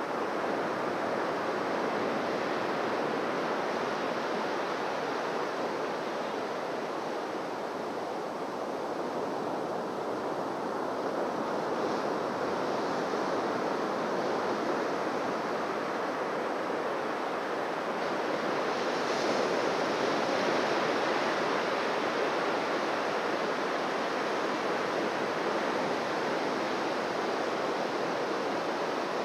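Ocean waves breaking and washing on a beach: a continuous surf wash that swells a little around a third of the way in and surges more loudly a little past the middle.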